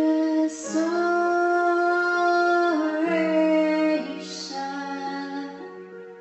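Music: long held notes sung by a woman, over a steady low drone, fading out near the end.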